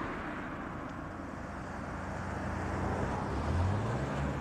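Outdoor ambience: a steady rushing noise with a low engine hum that rises in pitch about three seconds in.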